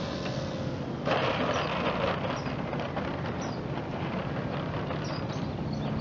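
A foam RC Spitfire model's wheels rolling and rattling on an asphalt runway during its landing rollout, over a steady low rumble, with a sudden louder rush of noise about a second in that fades over the next second or so.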